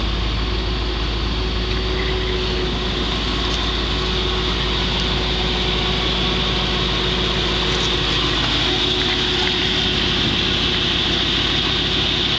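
1955 Chevrolet Bel Air's 265 V8, the Power Pack version with four-barrel carburettor, idling steadily.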